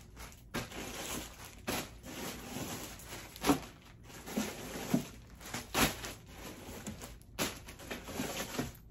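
Plastic poly mailer bags crinkling and rustling in irregular bursts as they are tossed onto a bed.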